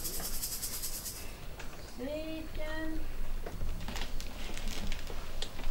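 A short two-note vocal sound, like someone humming or calling out, about two seconds in, over a low background with a few faint clicks near the end.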